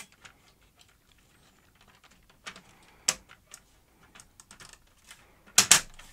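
Plastic front panel of a Panasonic AG-7350 SVHS video deck being pushed onto the chassis: scattered light clicks and taps, then a louder double knock near the end as it seats.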